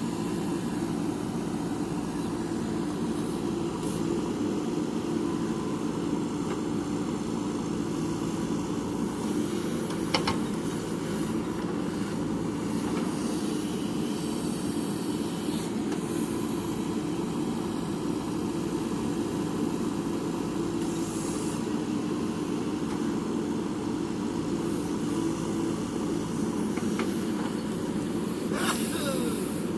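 Diesel engine of a JCB backhoe loader running steadily under work, with one sharp knock about ten seconds in and a brief rush of noise near the end.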